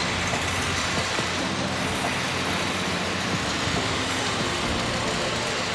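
Steady hum and hiss of distant road traffic.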